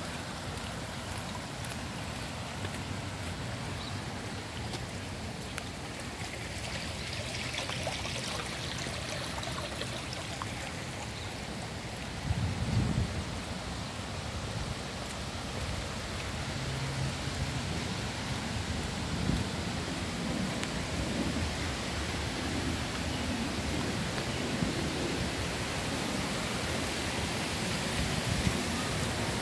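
Steady rain falling on wet asphalt, an even hiss. Low rumbles break in about twelve seconds in, the loudest moment, and come again and again through the second half.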